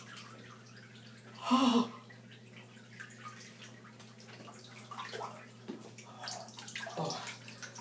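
Water sloshing and dripping in a bathtub of ice water as a person shifts on the rim and climbs out, with a short loud yell about one and a half seconds in and shorter vocal sounds near the end. A steady low hum runs underneath.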